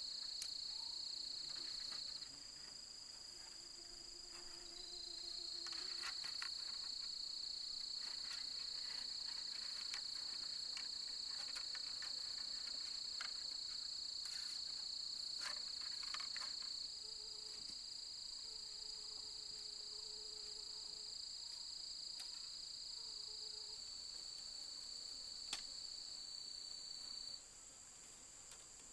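Steady high-pitched insect chorus of crickets or cicadas, dipping about two seconds in, returning, and dropping again near the end. Light clicks and rustles of split bamboo strips being bent and woven come through in the middle.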